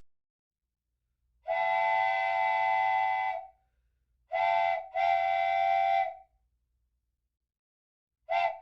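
Steady, flat-pitched whistle blasts: a long blast of about two seconds, a short one, another long one, then a short blast starting near the end.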